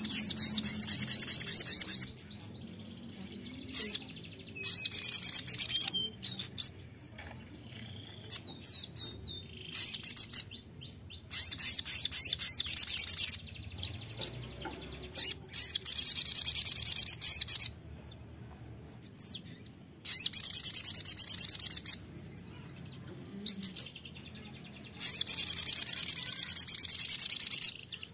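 Sunbird (sogon) singing: bursts of rapid, high-pitched twittering song, each one to three seconds long, about six of them, with faint chips in the gaps.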